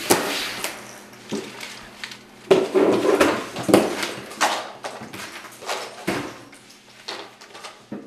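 Cardboard jigsaw puzzle pieces being swept across a tabletop and into a puzzle box, an irregular run of scrapes and clatters that is busiest a few seconds in.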